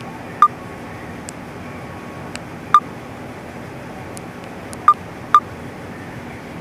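Four short electronic beeps, each a single high tone lasting a fraction of a second. They come at uneven intervals, the last two close together near the end, over a steady background noise.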